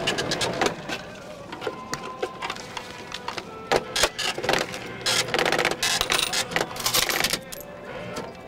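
Cash register at a checkout: a run of clicks and short rattling bursts from its receipt printer, the longest bursts a little past halfway.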